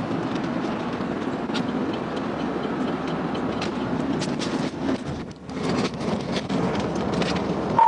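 Steady road and engine noise of a car driving at highway speed, heard from inside the cabin, with scattered light clicks and knocks. It drops away briefly about five seconds in.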